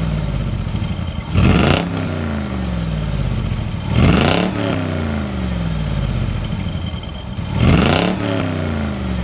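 Chevrolet Corvette LS1 V8 idling, revved three times a few seconds apart; each rev climbs sharply and falls back to idle.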